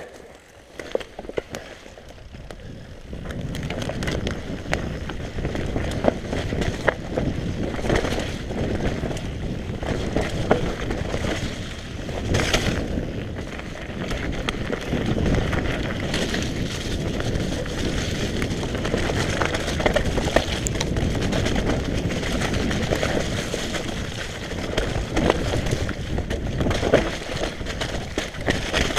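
Mountain bike riding fast down a rough trail: tyre noise over dirt and rocks with many rattling clicks and knocks, mixed with wind on the microphone. It is quieter at first and gets loud about three seconds in.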